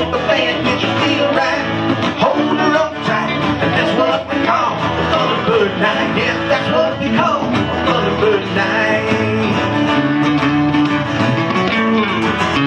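A live country-rock song played on acoustic and electric guitars.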